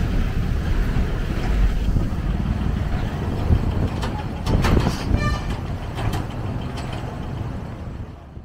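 Heavy trucks and other road traffic driving across a railway level crossing, diesel engines running with a steady low rumble and a few sharp knocks as they cross. A short vehicle horn honks about five seconds in, and the sound fades out at the end.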